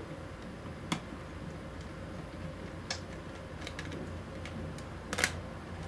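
Precision screwdriver turning small screws out of a DSLR's plastic body: scattered light clicks and ticks, the loudest a quick double click about five seconds in.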